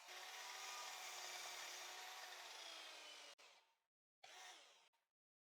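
Miter saw running and cutting a wooden slat, faint, with a steady motor tone over the cutting noise. The pitch sags slightly near the end, and the sound stops abruptly about three seconds in, followed by two short bursts of noise.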